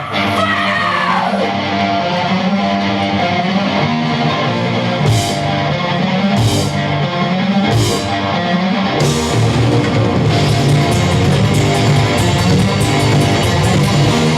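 Heavy rock music played on electric guitar, bass and drums, opening with a falling guitar slide. Several cymbal crashes come between about five and nine seconds in, and a fast hi-hat or ride pattern follows after that.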